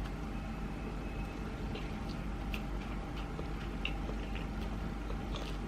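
Close-up chewing of a sushi piece topped with avocado and filled with crab stick: small wet mouth clicks and squishes scattered throughout, over a steady low hum.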